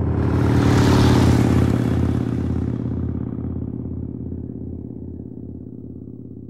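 Motorcycle engine rumbling, loudest about a second in, then fading away steadily.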